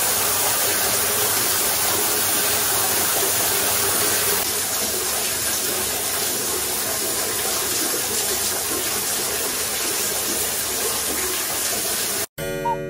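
Hot-spring water pouring steadily into a bath, a constant rushing splash that cuts off suddenly near the end.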